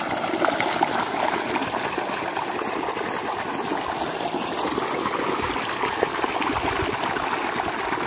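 Irrigation water gushing from a motor pump's outlet pipe into field furrows, a steady rushing.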